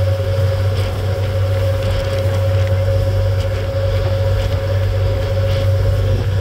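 Passenger ferry under way, its engines running at steady cruise: a constant deep drone with a steady higher hum on top.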